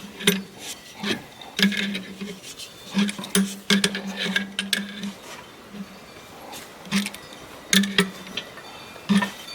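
Irregular metal clicks and clinks from a wrench turning a harmonic balancer puller's bolt to draw the crankshaft pulley off, with short low hums that come and go between them.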